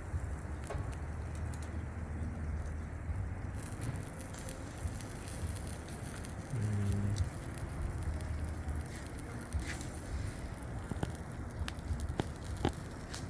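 Fish grilling over a charcoal fire: scattered pops and crackles over a steady low rumble, with a brief low hum about six and a half seconds in.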